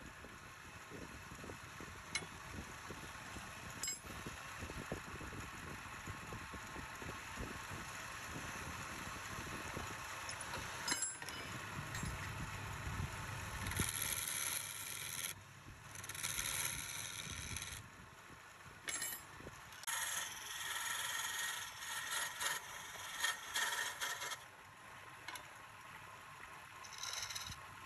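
A wood lathe spins a wooden spindle while a hand-held turning tool cuts and scrapes along it. For the first half the cutting noise is steady. After that it comes in short bursts of higher, hissing scraping, separated by brief pauses as the tool is lifted and set back.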